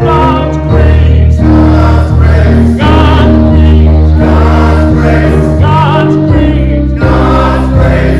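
Church music: a choir singing with instrumental accompaniment, over sustained low bass notes that change about once a second.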